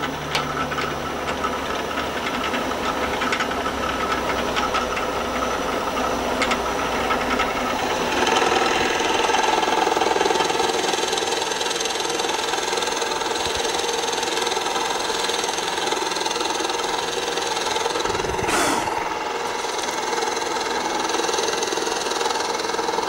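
Drill press running, a 3/4-inch Forstner bit boring into a red oak block. The sound grows louder and fuller about eight seconds in, and there is a brief knock near the end.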